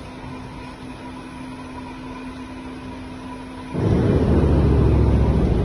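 Tubular rib-trim cutting machine running with a steady hum. About four seconds in, a much louder low rumble starts and lasts about two seconds.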